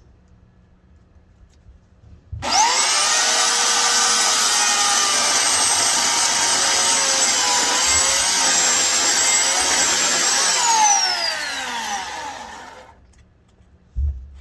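Electric chainsaw starting abruptly about two seconds in and running with a high-pitched motor whine while cutting through a log, the pitch sagging a little under load. Near the end the whine falls away as the motor winds down, and a short thump follows.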